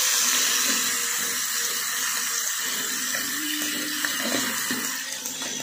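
Ground chili spice paste sizzling in hot oil in an aluminium wok as it is stirred with a metal spatula; the sizzle slowly dies down.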